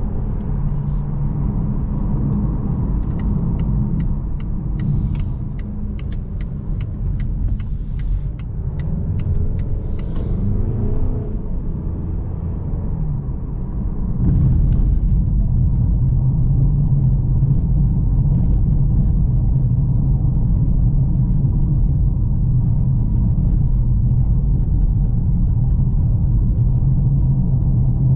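Volvo S90 on the move: a steady engine and road rumble. A run of regular ticks, about two or three a second, sounds for several seconds in the first third. About halfway through the rumble steps up louder, with a steady engine note.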